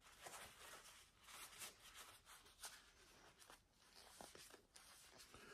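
Faint rustling and rubbing of a paper towel, picked up from the bench and wiped around a screwdriver's brass ferrule to clear squeezed-out epoxy.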